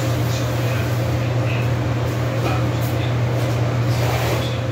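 A steady low hum, unchanging throughout, with a faint higher steady tone above it.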